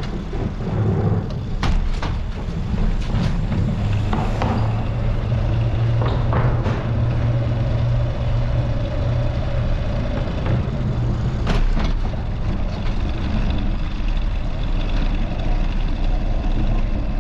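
City street traffic heard from a moving bicycle: engines of passing cars and trucks over a steady low rumble, with a few sharp clicks.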